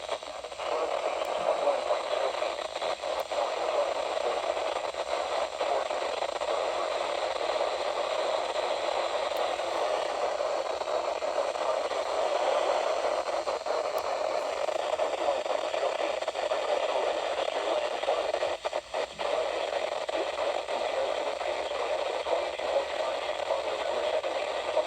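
Static from a weather-band radio receiver picking up a weak NOAA Weather Radio signal: a steady noisy hiss through the speaker, dipping briefly a few times.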